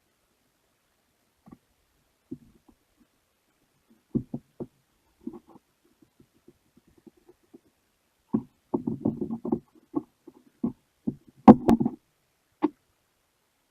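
Rusty pliers being handled and worked open and shut after oiling with 3-in-1 oil, metal clicking and knocking: scattered clicks, a quick flurry of clacks about two-thirds of the way in, and one louder knock near the end.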